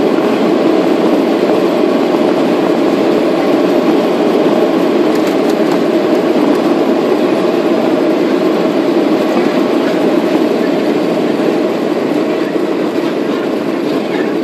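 Boeing 737 jet engines at takeoff thrust, heard from inside the cabin, with the rumble of the wheels rolling fast down the runway. The noise is loud and steady and eases a little near the end as the aircraft lifts off.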